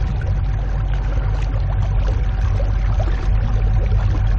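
Small boat moving across calm water: a steady low rumble with a faint steady whine over it, and water splashing and gurgling close to the hull.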